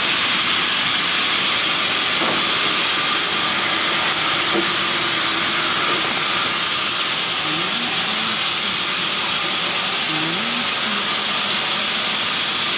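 A steady, loud, even hiss with a faint machine whine in it, with faint voices in the background for a few seconds around the middle.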